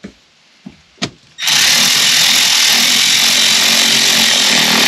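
Cordless electric ratchet running steadily, driving a screw into the plastic lower dash trim panel, starting about a second and a half in after a few light clicks.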